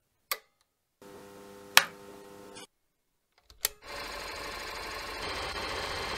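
8 mm film projector being started: a switch clicks, a short steady hum with a sharp click in it cuts off, another click follows, and about four seconds in the projector starts running with a steady mechanical clatter.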